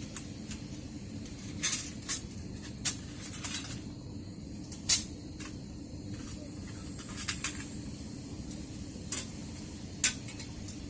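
Camp cookware and stove gear being handled: about nine separate sharp metal clinks and knocks, over a steady low rumble.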